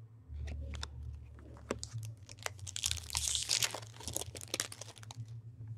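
A foil trading-card pack wrapper being torn open and crinkled, with quick clicks and snaps of cards being handled; the loudest tearing comes about three seconds in. A steady low hum runs underneath.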